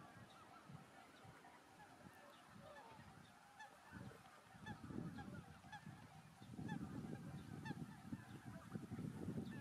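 A flock of wild geese calling in the distance: many short, high honking calls overlapping throughout. Under them is a low, gusty rumbling that grows louder in the second half.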